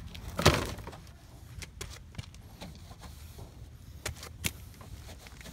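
A few sharp clicks and light knocks from handling, the loudest about half a second in and two more close together near the end, over a low steady background rumble.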